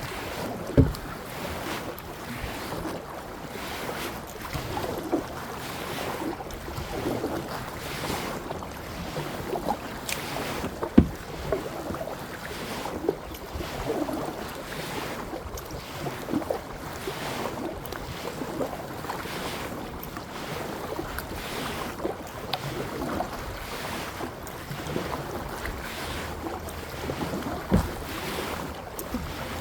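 Kayak being paddled: water splashing and swishing with the paddle strokes about once a second, with wind on the microphone. Three sharp knocks stand out, near the start, about a third of the way in and near the end.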